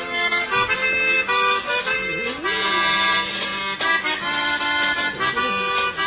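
Accordion-led music with a steady beat.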